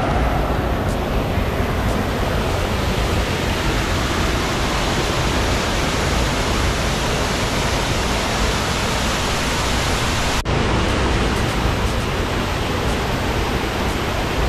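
Small waterfall splashing into a shallow rocky river pool: a steady rush of falling water, with a momentary break about ten seconds in.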